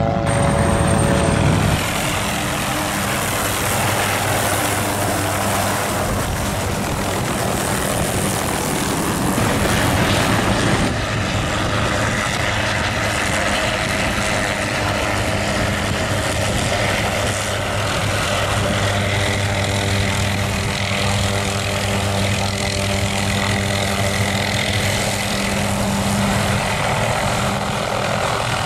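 OH-6D light helicopter flying close: rapid thudding beat of its main rotor over a steady engine hum, with a faint high turbine whine through the first part.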